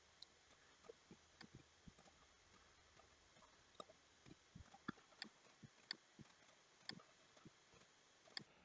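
Near silence with faint, irregular clicks of a computer mouse and keyboard, a few at first and more often in the second half.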